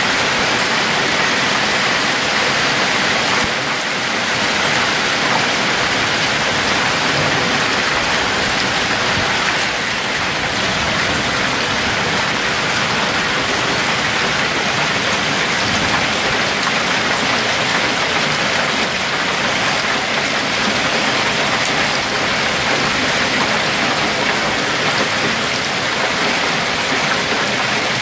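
Hailstorm: hail and heavy rain coming down in a dense, steady hiss of countless small impacts.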